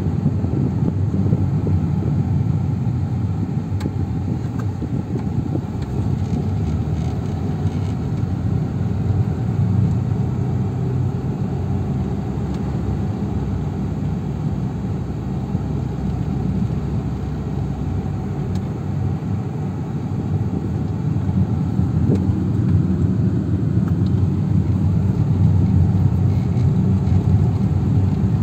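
Car running and rolling along a road, heard from inside the cabin: a steady, low-pitched engine and road noise.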